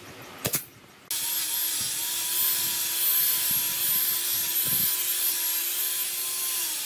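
A pneumatic brad nailer fires once, a sharp double crack about half a second in. From about a second in, a handheld power sander with a round sanding pad runs steadily against wood, with a constant whine over the noise.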